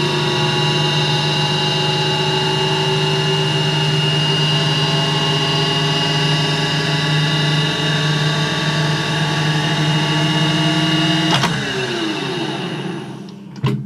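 Studer A80 reel-to-reel tape recorder running, heard through contact microphones on its chassis mixed with room sound: a steady hum of many tones from its motors and transport. About two-thirds of the way in, a sharp click as the transport is stopped, then the hum falls in pitch and fades as the reels wind down. Another sharp click comes near the end.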